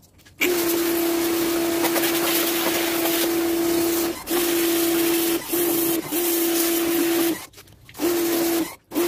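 Pressure washer running: a steady motor hum under the hiss of the water jet spraying onto metal grill grates. It cuts out and starts again several times in the second half as the trigger is let go and squeezed.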